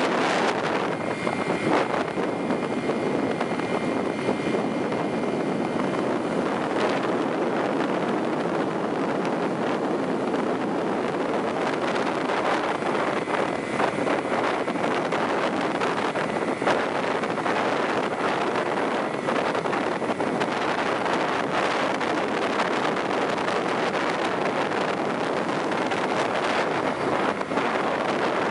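Steady rushing road and wind noise of a moving car, with a faint high whine in the first few seconds.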